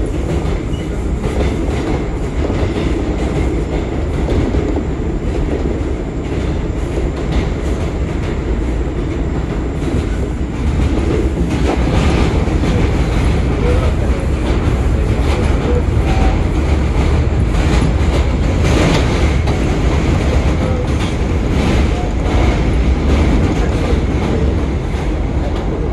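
R179 subway train running through the tunnel between stations, heard from inside the car: a loud steady rumble with the clickety-clack of wheels over rail joints, growing a little louder about halfway through.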